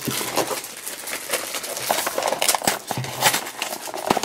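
A small cardboard blind box being pulled from its case and its flap opened by hand: an irregular run of rustling, scraping and light clicks of cardboard.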